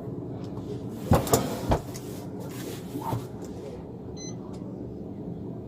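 Steady hum of a running police car heard from inside the cabin. A quick cluster of sharp knocks and rattles comes about a second in, a few softer knocks follow around three seconds, and a short high beep sounds just after four seconds.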